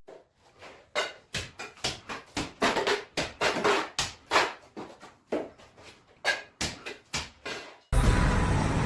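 A run of short, sharp knocks and clatters at uneven spacing, about two a second. Near the end a loud, steady rumbling noise starts abruptly.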